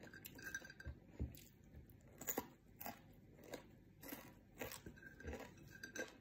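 Close-mouthed chewing and crunching of crispy fried anchovies eaten by hand, with irregular crisp crunches about every half second to a second.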